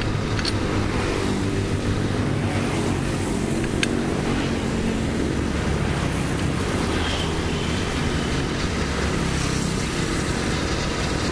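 Walking tractor's diesel engine running steadily at idle, with a single sharp metallic click about four seconds in.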